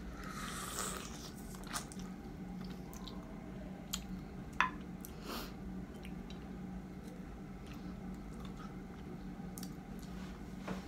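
Close-up mouth sounds of a person biting into and chewing small, ripe yellow fruit called baby mango, with a noisy bite near the start and scattered sharp clicks, the loudest about halfway through. A steady low hum runs underneath.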